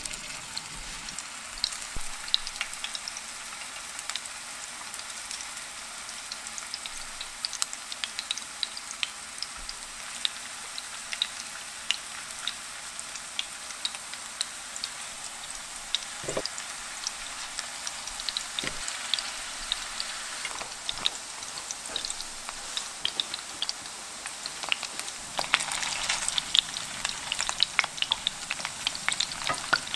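Raw meatballs sizzling in shallow hot oil in a frying pan, a steady hiss with many small crackles and pops. Near the end the crackling gets busier and louder as a wooden spatula rolls the meatballs in the pan.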